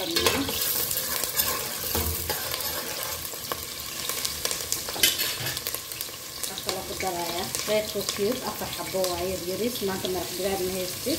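Diced onion and whole spices sizzling in hot oil in a stainless steel pot, with the clicks and scrapes of a metal ladle stirring them at first. A voice-like sound with a wavering pitch comes in over the sizzle in the second half.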